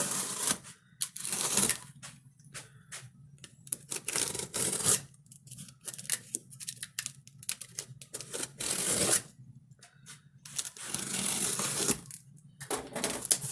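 A taped cardboard box being cut and torn open: tape and cardboard tearing in several longer stretches, between scattered taps, clicks and scrapes.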